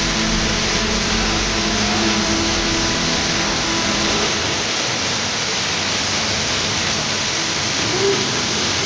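Steady roar of a waterfall: an even rush of falling water, with faint music trailing off in the first few seconds.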